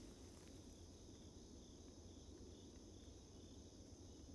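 Near silence, with the faint, steady high-pitched chirring of crickets in the background.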